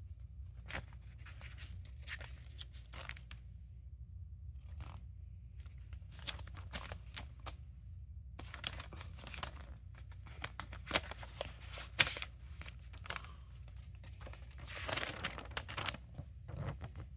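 Glossy paper pages of a small booklet rustling and flapping as they are turned by hand, in irregular spurts, with a couple of sharper snaps about eleven and twelve seconds in.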